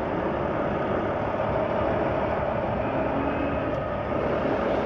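Volvo semi-truck's diesel engine running steadily at low speed while the truck reverses, heard from inside the cab.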